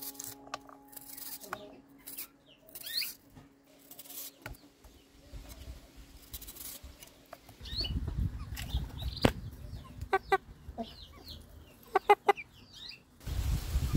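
A rooster clucking in two short runs of quick calls, about ten and twelve seconds in, the second louder. Before that come the soft clicks of a knife cutting through an onion, with small birds chirping, and bursts of low rumble.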